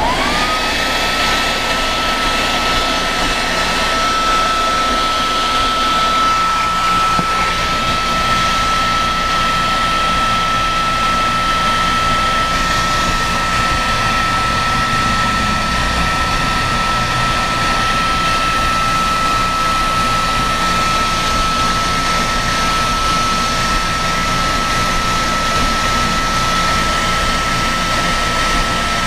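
Handheld hair dryer switched on: its motor spins up with a whine rising over the first half second, then runs at a steady high whine over the rush of blown air.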